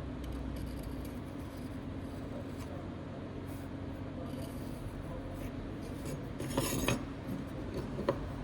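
Hard objects handled on a workbench: a brief scraping clatter about two-thirds of the way in and a single click near the end, over a steady low hum.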